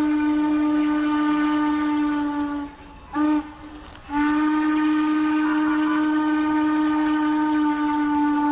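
Steam locomotive whistle blowing one steady note with a breathy hiss: a long blast that cuts off, a short toot, then another long blast.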